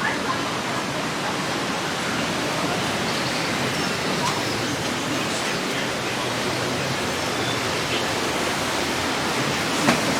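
Steady rush of churning water from a river rapids raft ride, with faint voices in the background and a short knock near the end.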